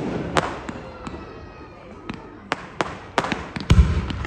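Aerial fireworks going off in a string of sharp bangs, sometimes two or three a second, each ringing out briefly. A deeper, heavier boom is the loudest near the end.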